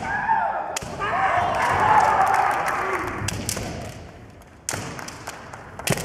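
Kendo fencers' drawn-out kiai shouts. A few sharp knocks of bamboo shinai and stamping feet on the wooden floor come about a second in and again in the second half.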